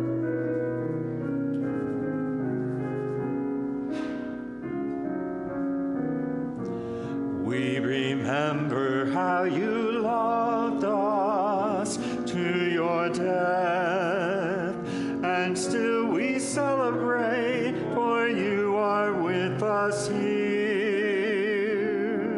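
Church hymn on keyboard: held chords of the introduction, then a solo singer with a wide vibrato comes in about seven and a half seconds in and carries the melody over the keyboard accompaniment.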